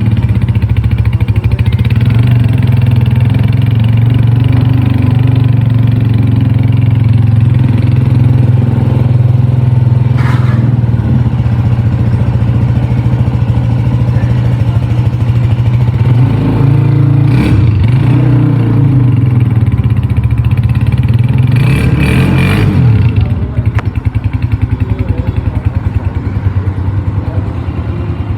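New Honda CG125 motorcycle's air-cooled single-cylinder four-stroke engine running on its first start-up. It is revved a few times past the middle, then drops back to a quieter idle for the last few seconds.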